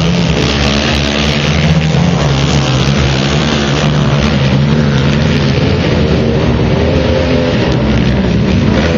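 Racing quads' engines running hard on a dirt track, their pitch rising and falling as the riders throttle on and off through the course, with more than one engine heard at once.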